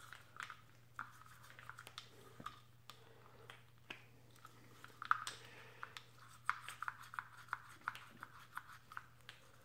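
Toothbrush bristles scrubbing the metal bore and butterfly valve of a car's electronic throttle body: faint, irregular scratching and clicking, busier in the second half.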